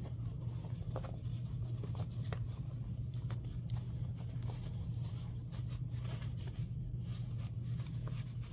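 Fabric of a small zippered pouch rustling and scratching in the hands as it is turned right side out, in many short, faint rustles, over a steady low hum.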